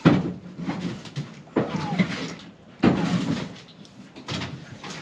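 A dog digging and scrabbling against the base of a wooden wall while hunting rats: about four bursts of knocking and scraping on wood and dirt.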